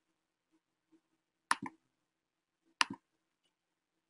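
Two sharp computer mouse clicks, each followed at once by a softer click, about a second and a half in and again a little over a second later.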